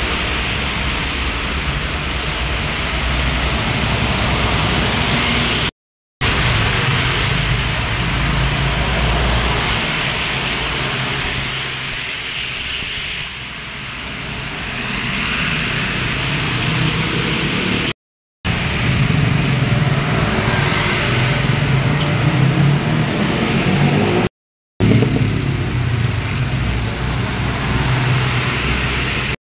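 Road traffic going by on wet asphalt: diesel trucks and cars passing with engine drone and tyre hiss, broken by three short gaps. About nine seconds in, a thin high whistle holds for four seconds.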